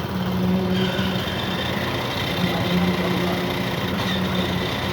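An engine running at a steady idle, with an even low hum.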